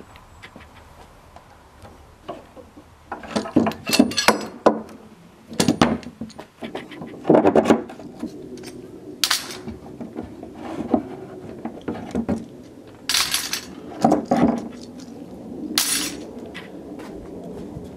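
Steel bar clamps clinking and clanking as they are handled, tightened and taken off. The sound comes in several clusters of sharp metallic knocks and rattles, starting about three seconds in.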